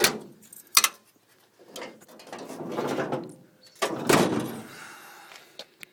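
Sharp latch clicks followed by clunks and rustling handling noise of a pickup truck's hood being released and lifted.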